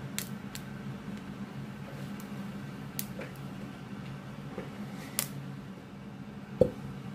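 Hand squishing and kneading slime in a plastic tub, with a few sharp sticky clicks and pops as it is squeezed and pulled. A single louder knock near the end, over a steady low hum.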